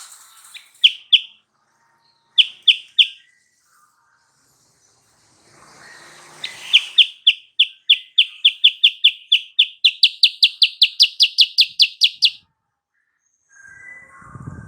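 Silver-eared mesia (kutilang sutra) calling: a few short, clear single notes, then a long, fast run of repeated notes, about four or five a second, stepping slightly higher in pitch partway through before stopping about two seconds before the end.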